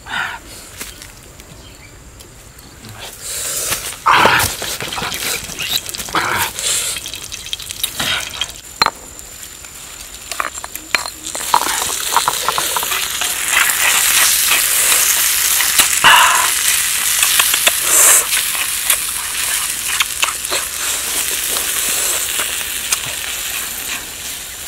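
A stone pestle knocking a few times in a stone mortar, then a steady rustling hiss with occasional knocks as food is stirred and mixed on a clay plate.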